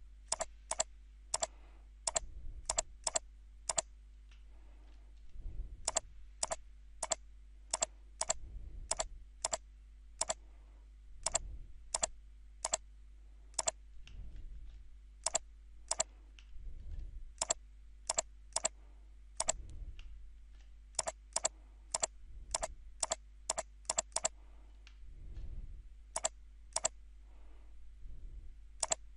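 Computer mouse button clicking in quick runs of two to eight clicks, about three a second, with short pauses between the runs.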